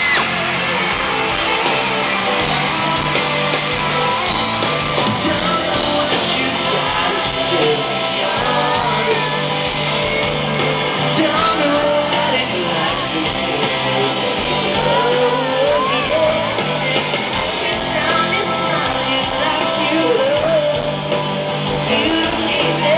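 Live band playing a ballad, with singing and an audience shouting and singing along.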